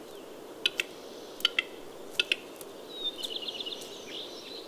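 Male western capercaillie's display song: pairs of dry clicks about every three-quarters of a second, running into a quick series of clicks about three seconds in, then a scratchy wheezing phrase.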